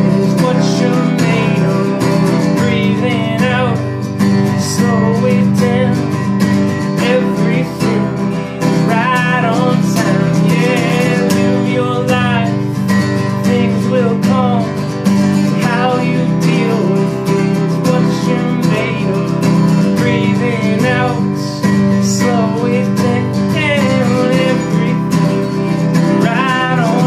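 Acoustic guitar strummed, with a man singing over it in sliding, wavering vocal lines.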